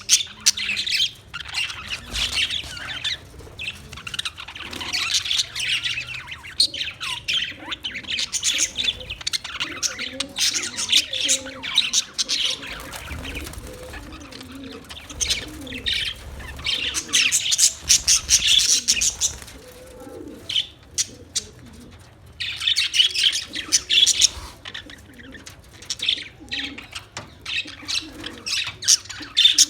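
A group of Australian parrots chattering and chirping together in busy stretches, with a couple of short lulls.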